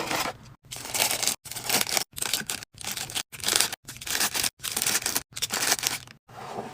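Food packaging crinkling and tearing in rapid short snippets, each under a second and cut off abruptly by a brief silence.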